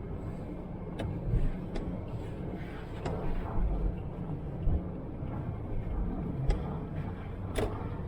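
Great Wall Hover H3 heard from inside the cabin while driving slowly: a steady low engine and road rumble, broken by several sharp clicks and knocks.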